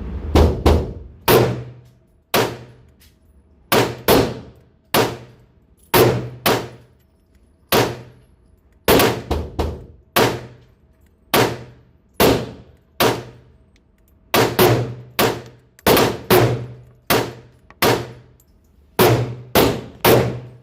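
FN 502 .22 LR pistol firing Aguila 60-grain subsonic rounds: about two dozen sharp shots at an uneven pace, sometimes two or three in quick succession, each followed by a short ringing tail.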